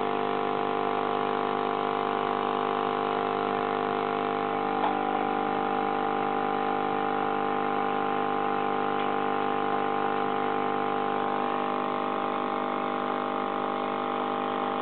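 Aquarium pump humming steadily, a constant mechanical drone made of several fixed tones. A single faint click about five seconds in.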